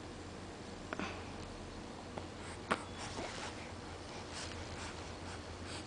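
Quiet room tone with a steady low hum, a few faint soft clicks, and a baby's faint sniffing breaths.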